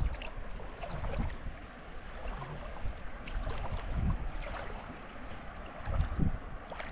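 Wind gusting on the microphone over moving water: low rumbling buffets at the start, about four seconds in and near the end, above a steady wash of water with small splashes and clicks.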